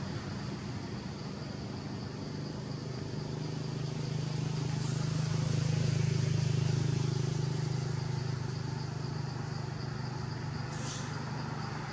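A low motor engine hum that swells to its loudest about halfway through and eases off again, over a faint steady high tone.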